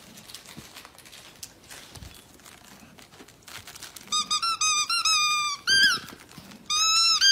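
A plush dog toy's squeaker being chewed by a dog. After a few quiet seconds it gives a quick run of short squeaks, then two longer squeaks near the end.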